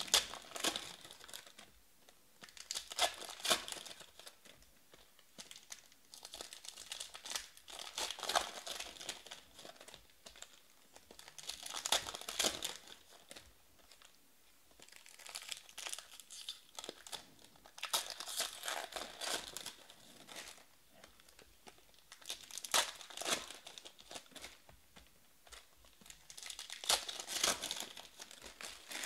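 Foil trading-card packs crinkling and being torn open by hand, in bursts every four to five seconds.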